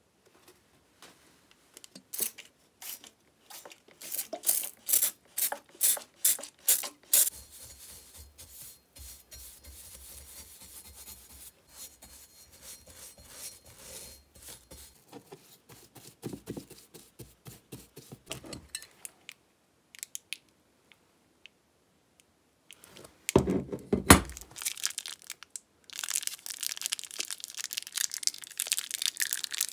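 Workshop handling sounds: a run of sharp clicks and taps, then a bristle brush scrubbing liquid rust converter onto a flat steel plate. A loud thump comes about two-thirds of the way in, followed by crackly rustling while small coil springs are handled.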